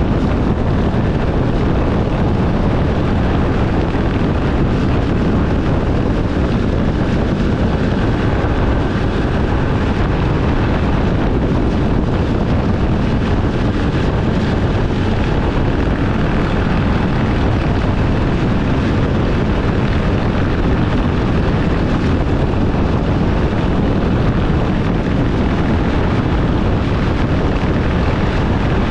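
Steady wind rush buffeting the microphone of a camera on a motorcycle cruising at highway speed, with low engine and road rumble underneath.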